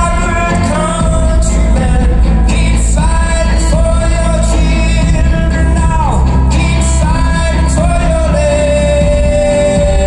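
Live acoustic guitar with a man singing long, wordless held notes, each lasting a couple of seconds, one sliding down in pitch about six seconds in, over a deep steady bass.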